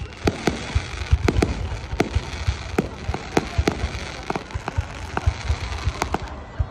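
Aerial fireworks shells bursting overhead: an irregular rapid series of sharp bangs and pops, two or three a second, over a continuous crackle between them.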